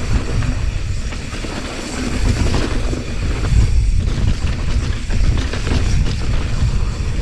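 Mountain bike descending a rough, rocky trail: tyres rolling over rock and the bike rattling with many sharp clicks and knocks, over a steady rumble of wind on the microphone.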